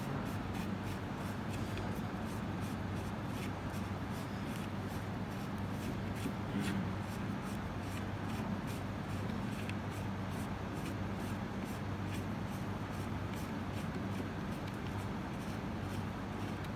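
Faint rubbing and light scattered clicks of parts being handled as a handle is screwed onto a CO2 laser's arm, over a steady low hum.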